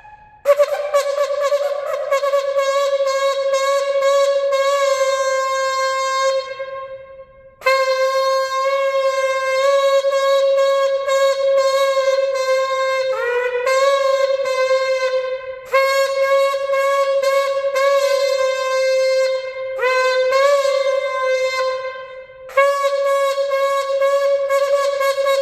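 Handmade 15-inch ram's horn shofar blown in four long, loud blasts on one steady note, with short breaks for breath between them. Partway through, the note twice dips and bends back up in pitch.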